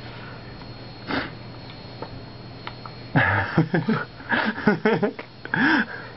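A person's voice making breathy sniffs and puffs, then, from about three seconds in, a run of short wordless voiced sounds that rise and fall in pitch, mixed with breathy bursts.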